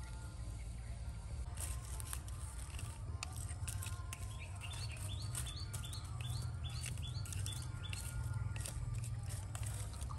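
A bird repeats a short rising chirp about three times a second for several seconds, starting about halfway in. Scattered small clicks and crackles come from a stick stirring charcoal embers, over a low steady rumble.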